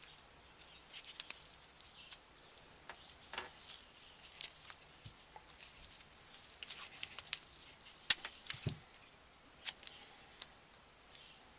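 Scattered light clicks and crinkles of electrical tape being handled over the drilled vent holes of a 37mm smoke projectile, irregular and a little busier in the second half.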